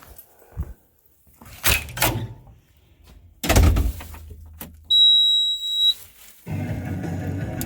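A few knocks, then a heavy thunk with a short low rumble, then a steady high ding lasting about a second; music with a steady beat starts near the end.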